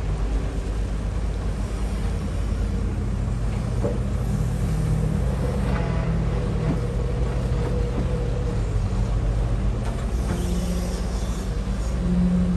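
Cat 320C excavator's diesel engine running steadily under load as the machine digs, swings and dumps, its note shifting slightly as the hydraulics work. A few faint knocks and rattles come around the middle, as the bucket unloads dirt into the dump truck.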